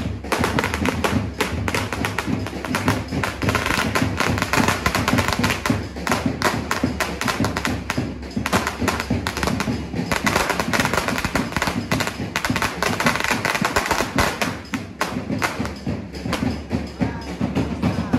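A 'sawa' firecracker string of about 3000 rounds burning down on pavement, going off in a rapid, uneven, unbroken run of bangs.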